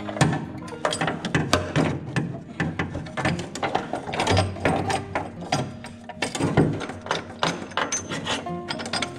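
Ratchet wrench clicking in rapid, irregular strokes as it works a puller that draws the rear crankshaft pulley off the engine, metal on metal.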